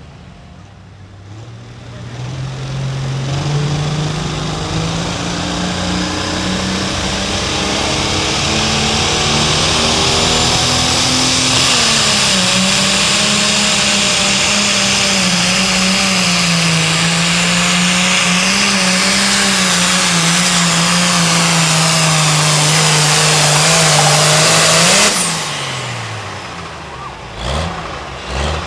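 Turbocharged diesel pulling tractor running flat out under the load of the pulling sled, fading in over the first couple of seconds, then holding a loud, steady note whose pitch wavers up and down as the load changes. About 25 seconds in the throttle is cut and the engine winds down, with a few pops near the end.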